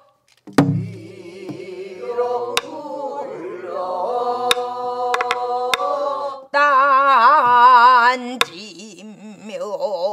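Pansori singing with long, wavering held notes, marked by a few sharp strokes on a buk barrel drum. A group of voices sings along partway through.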